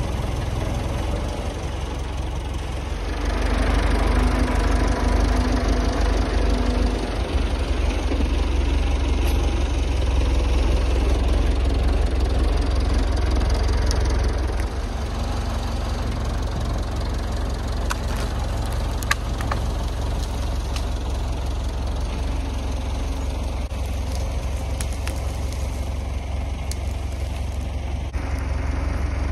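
Massey Ferguson MF 30 tractor's engine running, its revs rising about three seconds in and dropping back to a lower, steady speed about halfway through. A few sharp clicks come near two-thirds of the way through.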